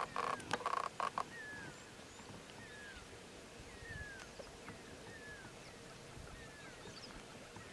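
Wild animal calls: a few loud, short, choppy calls in the first second or so, then a bird repeating a short falling call about once a second.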